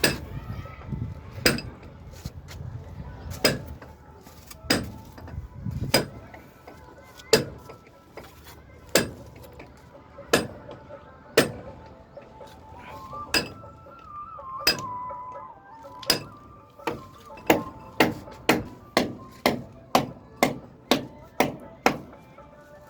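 Sharp hammer strikes with a short ring, spaced a second or more apart at first, then a quick run of about two blows a second through the second half.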